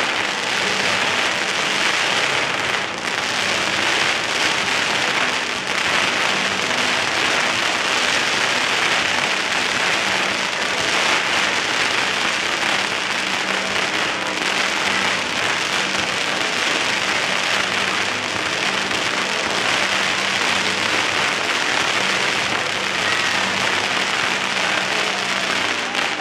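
Fireworks on the Scoppio del Carro cart going off in a dense, unbroken crackle and hiss, steady throughout with no single bang standing out.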